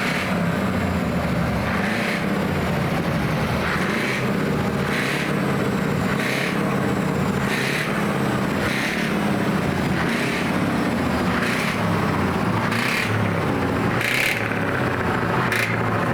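V8 truck engines running with a deep, steady rumble. A short hiss comes about every second and a bit.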